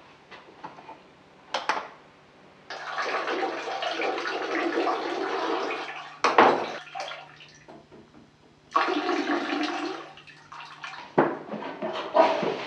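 Toilet flushing: water rushing in two spells, the first about three seconds long and the second shorter, each starting and stopping abruptly. A sharp knock falls between them, and a few knocks and thuds come near the end.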